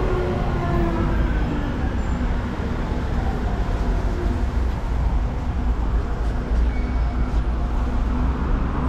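Steady low rumble of road traffic on a busy city street, with a faint steady engine hum under it.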